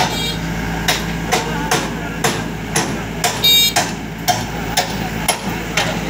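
Yanmar combine harvester's diesel engine running steadily under a series of sharp metallic knocks, roughly two a second, a couple of them ringing briefly.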